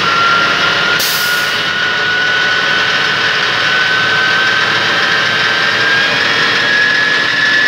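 Fire truck's diesel engine and midship fire pump running loud under throttle, with a whine that rises slowly in pitch as the engine is throttled up to raise discharge pressure. A brief hiss about a second in.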